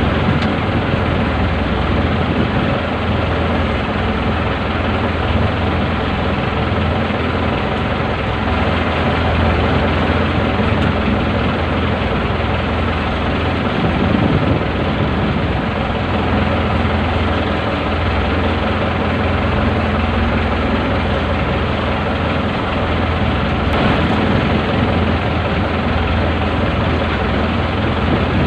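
A fishing boat's engine running steadily at an even speed, a low, continuous drone.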